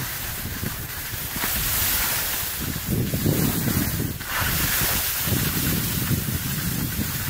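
Wind buffeting the microphone while moving downhill, in gusty low rumbles, over a steady hiss and scrape of sliding on packed snow.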